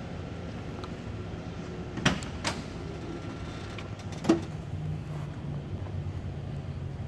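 Cab door of a 1969 Dodge D100 pickup being opened: two sharp latch clicks about two seconds in, then a louder knock a couple of seconds later as the door swings open.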